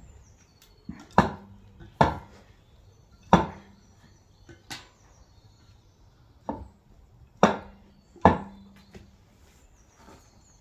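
Seven sharp metal-on-metal blows at uneven intervals, several leaving a short low ring, as the axle bolts are knocked loose.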